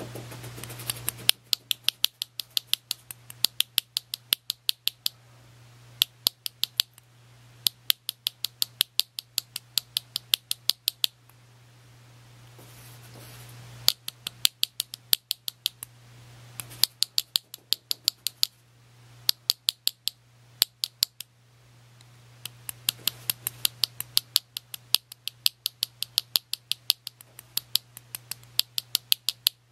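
Small chasing hammer tapping a chasing tool to texture the inlay of a shibuichi plate: runs of light, sharp taps, about four a second, broken by short pauses.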